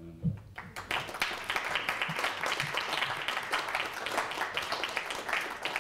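Applause from a room of people: many hands clapping in a dense, even patter that starts about half a second in.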